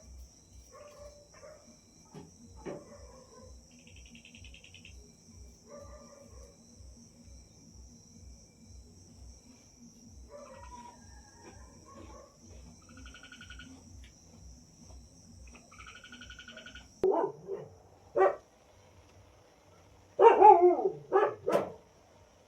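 A dog barking, twice a little after the middle and then three or four quick barks near the end, the loudest sounds here. Under it a steady high cricket drone and small bird chirps; the drone stops as the barking begins.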